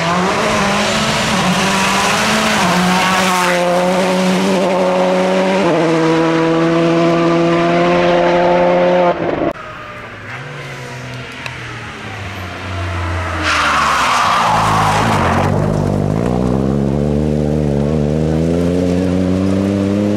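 Rally cars at full throttle on a special stage. An engine at high revs drops in pitch at two upshifts, then climbs until it cuts off abruptly about nine seconds in. Later a short rush of hissing noise is followed by another car accelerating hard, its engine pitch rising.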